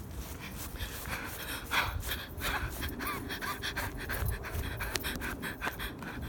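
A person breathing hard close to the microphone while on the move, with footsteps and handling rustle.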